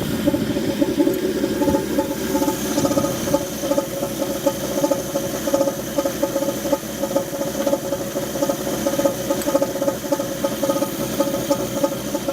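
1983 AMC Eagle engine idling rough, with a steady tone over a fast, even pulsing. This is the strange sound that the owner thinks comes from the carburetor.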